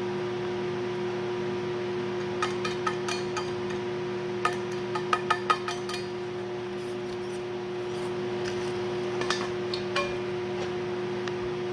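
A steady electrical hum with scattered sharp metallic clicks and taps, several in quick runs between about two and six seconds in, a few single ones later.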